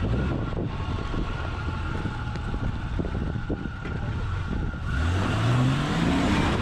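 Off-road SUV's engine running with an uneven low rumble and irregular knocks, then revving up steeply about five seconds in as it takes a run at a steep sandy climb.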